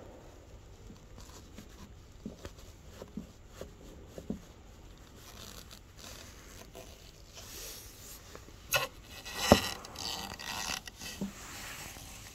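Close handling noises at a car's fuel filler door: a few faint clicks, then rustling and scraping with a sharp click and a louder knock about three-quarters of the way through.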